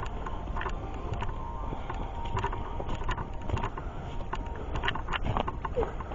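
Footsteps on a hiking trail: irregular crunches and scuffs, several a second, over a steady low rumble on the microphone.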